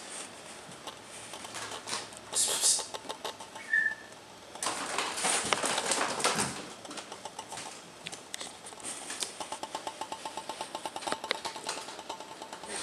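A kitten's claws scratching and rustling on a rolled-up rug as it climbs, with scattered light clicks and a run of quick rhythmic rasps later on. A brief high squeak comes about four seconds in.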